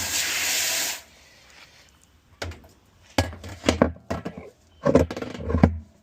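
A steady spray hiss that stops about a second in, then a scatter of knocks and rattles as the parts being cleaned are handled.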